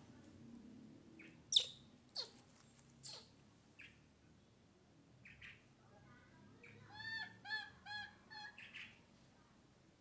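Baby monkey calling: three sharp, high squeals that drop in pitch in the first few seconds, then a quick run of about six short, chirping calls near the end.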